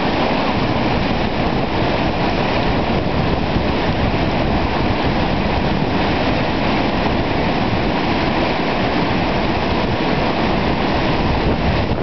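Steady rushing of a river's flowing water, an even noise that does not change throughout.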